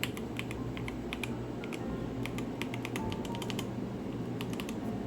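Typing on an Akko Dragon Ball Super mechanical keyboard: quick runs of key presses in three bursts with short pauses between them.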